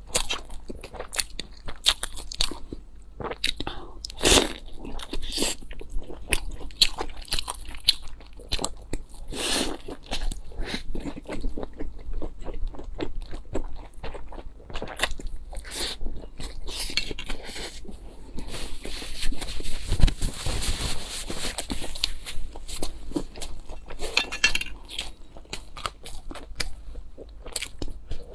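Close-miked eating sounds: many crisp, crunchy bites and chewing one after another, with a longer, denser noisy stretch about two-thirds of the way in.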